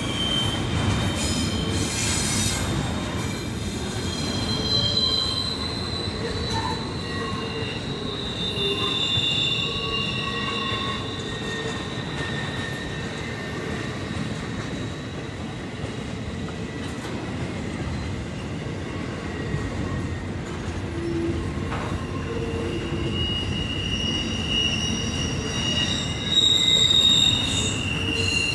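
Norfolk Southern freight train rolling past: a steady rumble of the cars, with wheels squealing in thin high tones that keep starting, stopping and shifting in pitch. It gets a little louder shortly before the end.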